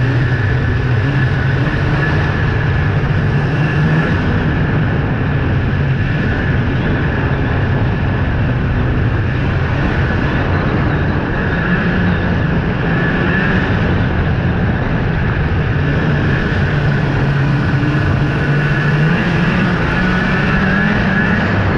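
Snowmobile engine running steadily while the sled cruises along a packed snow trail, heard from on board. Its pitch wavers a little with the throttle, and a steady high whine runs alongside.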